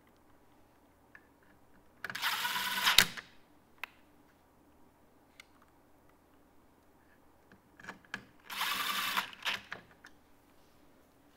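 Cordless drill-driver running in two short bursts of about a second each on screws in the mixing console's fader boards, with small clicks and taps of handling between.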